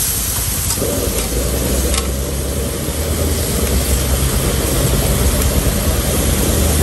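Stir-frying kuey teow in a steel wok over a high-flame burner: a steady low rumble from the burner under the sizzle, with a short clink of the steel ladle against the wok near the start and again about two seconds in.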